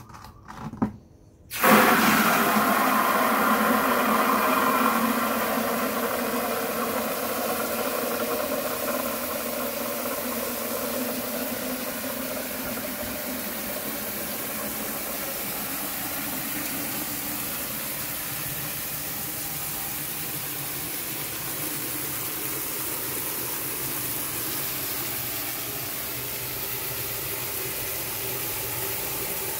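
Water from a tap pouring in a strong stream into a plastic bucket: a steady rushing splash that starts about a second and a half in, just after a couple of knocks as the bucket is set down and the tap opened.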